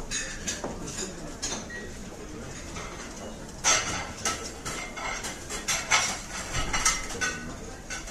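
Clatter of kitchen utensils and dishes: irregular clinks and knocks of metal and crockery, loudest a little under four seconds in and again around six and seven seconds in.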